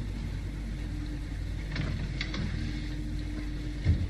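A steady low hum, with a few faint clicks about two seconds in and a short low thump near the end.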